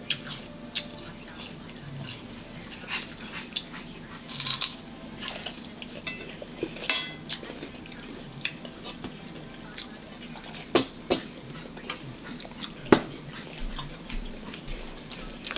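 Crisp, irregular crunches of raw celery being bitten and chewed close to the microphone, with a begging dog whining and yipping in between.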